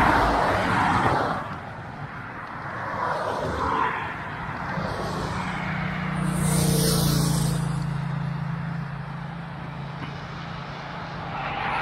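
Road traffic passing close by: a few vehicles pass one after another, their tyre and engine noise swelling and fading, with a low engine hum through the second half.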